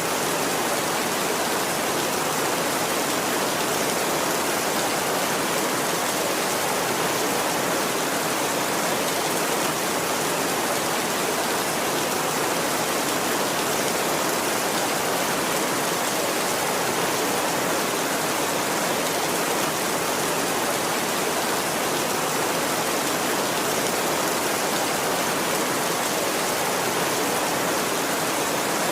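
Heavy rain falling on a tin roof, steady and even throughout, with no thunder.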